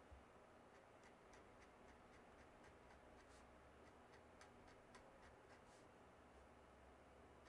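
Faint scratch-ticks of a Nikko steel dip-pen nib on sketchbook paper, drawing short quick hatching strokes: brief, irregularly spaced ticks, sometimes several close together.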